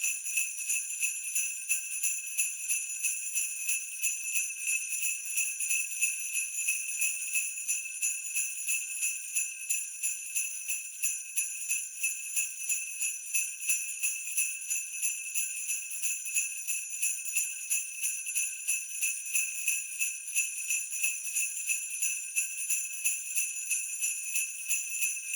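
Sleigh bells shaken in a steady, even rhythm, a continuous high jingling that pulses several times a second.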